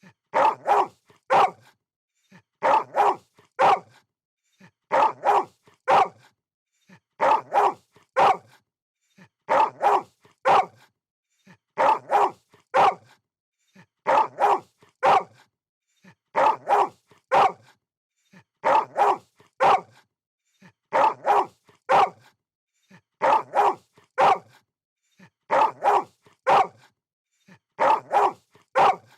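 A dog barking in quick clusters of three or four barks, one cluster about every two seconds, in an even repeating pattern with silence between the clusters.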